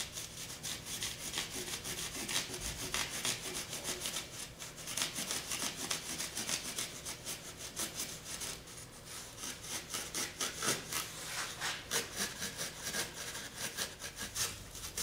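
Coping saw cutting through a block by hand in steady back-and-forth rasping strokes, easing briefly a little past halfway before picking up again.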